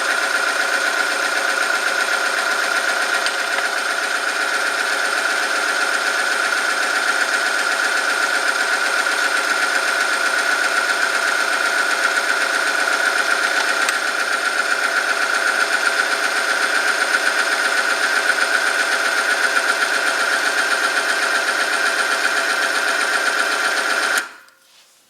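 Electric-motor-driven oil-film friction test machine running steadily, its shaft turning against a steel sample lubricated with hot engine oil, with a strong steady whine. About 24 seconds in it winds down quickly and stops, the way the machine halts under the added weights.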